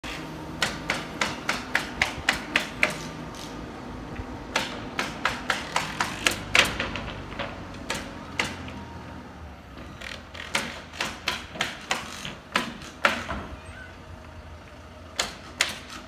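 Nails being driven into plywood roof sheathing on a timber-frame roof: runs of sharp strikes, about four a second, with short pauses between the runs.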